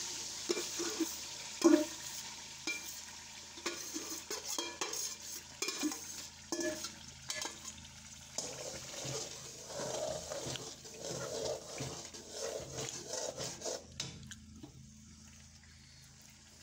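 Metal spoon scraping cooked pumpkin out of a steel bowl into a kadhai of hot ghee, then a metal slotted spoon stirring it: repeated clicks and scrapes of metal on metal over a faint sizzle. The clatter dies down near the end.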